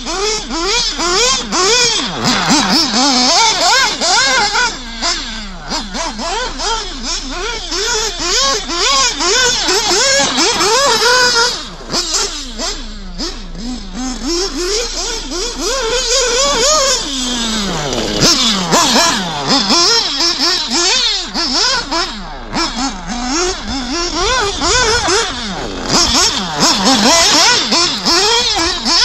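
Nitro RC buggy's FX two-stroke glow engine revving high and dropping back over and over, its pitch sweeping up sharply as the buggy accelerates and falling as it lets off.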